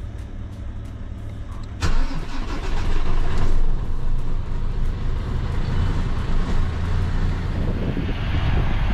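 Truck engine running. About two seconds in the sound suddenly jumps louder and stays louder.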